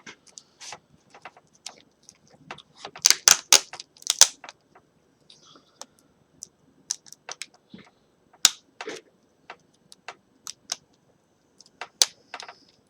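Scattered clicks and taps of hands handling a laptop's LCD panel and its plastic parts, with a louder cluster of crackling clicks about three to four seconds in.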